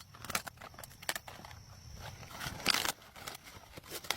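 Leaves and stalks crackling and rustling as plants are handled, with scattered snaps and a louder rustle about two and a half seconds in.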